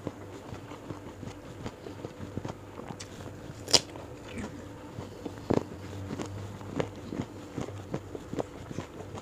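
Eating sounds from a person eating by hand: chewing, mouth and finger clicks at an irregular pace, and one loud, crisp crunch of a bite a little under four seconds in.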